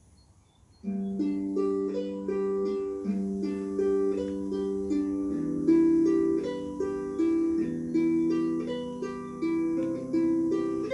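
Concert harp starting about a second in: slow, gentle plucked arpeggios over low bass notes that ring on for a couple of seconds each.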